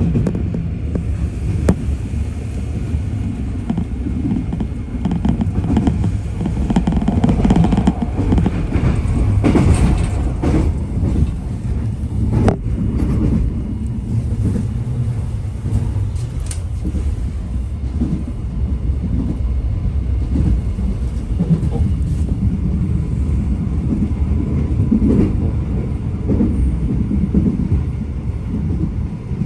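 Korail Line 4 electric multiple unit running between stations, heard from on board: a steady rumble of wheels on rail with a few sharp clicks from the track.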